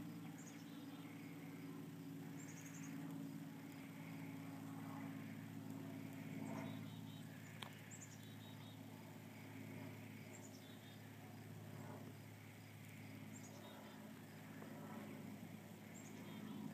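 Faint yard ambience: short high chirps from birds or insects repeat every two to three seconds over a steady low hum, with one sharp click about halfway through.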